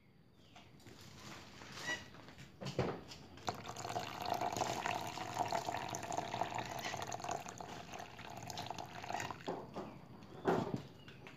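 Water poured steadily from a plastic bottle into a small box coated with homemade cement-mortar waterproofing, splashing and bubbling as it fills. The pouring stops near the end, followed by a couple of knocks, the loudest about ten seconds in.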